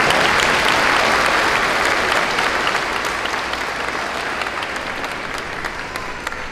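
Audience applauding, the clapping loud at first and dying away gradually over the last few seconds.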